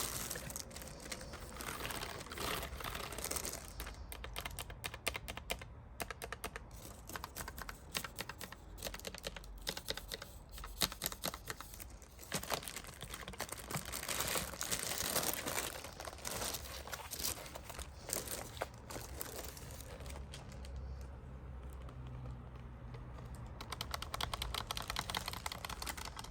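Typing on a Logitech Pop Keys wireless mechanical keyboard with round typewriter-style keycaps: quick runs of clacking keystrokes, with a quieter pause of a few seconds about three-quarters of the way through.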